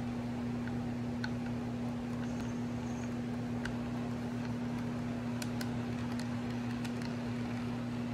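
HO-scale model freight cars rolling along the track, their wheels giving scattered light clicks over the rail joints, over a steady low electrical hum.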